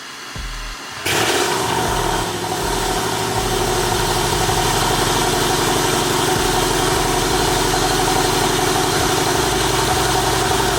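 Audi RS6's 4.0 TFSI V8 with aftermarket downpipes and full exhaust starting up: it catches about a second in and then runs steadily at idle, loud.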